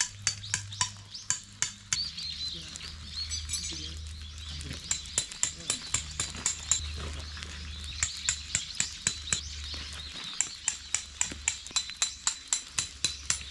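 Tent pegs being hammered into gravelly ground: sharp taps about three or four a second, in several bursts with short pauses between them, over a low steady hum.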